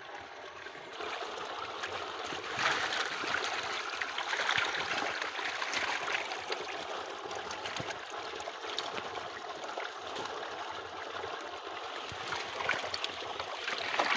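Water splashing and churning as a hand net is swept through a shallow pond crowded with tilapia, getting louder about a second in, with sharper splashes near the end.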